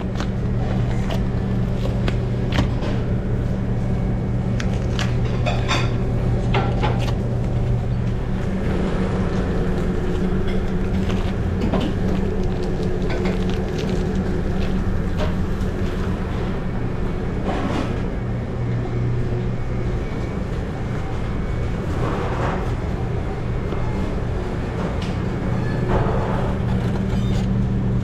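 Commercial kitchen noise: a steady low machine hum, with scattered clinks and knocks of pans and utensils at irregular moments.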